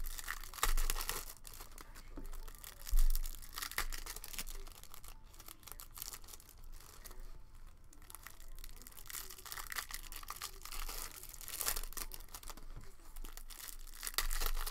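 Plastic wrapper of a trading-card cello pack being crinkled and torn open by hand, in irregular crackly bursts. A couple of dull bumps come about one and three seconds in.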